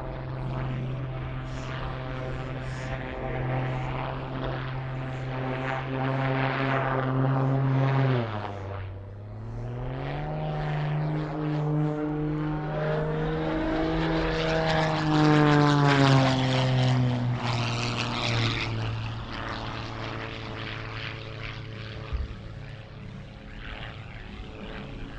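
Propeller-driven aerobatic plane's engine droning through a display routine. Its pitch dips and recovers about a third of the way in, rises and grows loudest a little past halfway, then drops and fades away. A short knock near the end.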